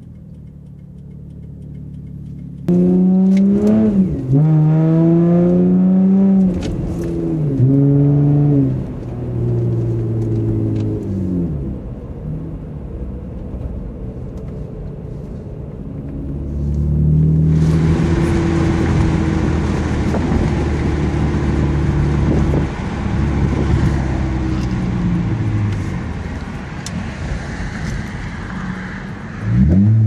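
Honda Accord 3.0-litre V6 heard from inside the cabin through an OBX cat-back exhaust with the resonator and muffler deleted, accelerating hard: the engine note climbs and drops back several times as it revs through the gears. About halfway through, a steady rush of wind and road noise joins a steadier engine drone.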